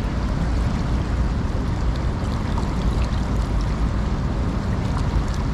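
Steady rush of sea water with a low rumble underneath.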